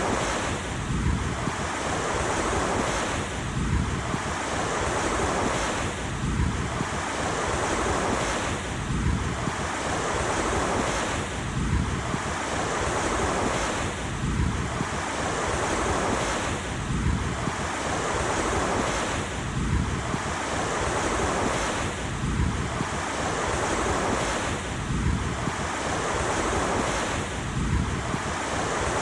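Ocean surf washing steadily, the noise swelling and easing in an even cycle about every two and a half to three seconds.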